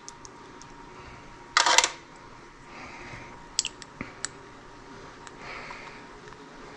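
Handling sounds of a reagent syringe and a small glass sample vial with a screw cap: a short, loud scrape about a second and a half in, then a few light clicks around four seconds as the cap is fitted.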